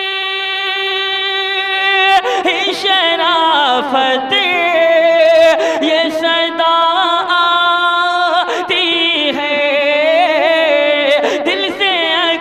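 A man's solo voice singing a naat. He holds one long steady note for about the first two seconds, then breaks into ornamented, wavering melodic runs.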